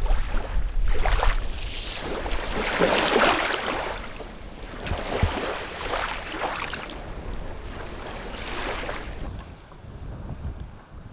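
Strong wind gusting, swelling and dying away every second or two, with a heavy rumble of wind buffeting the microphone.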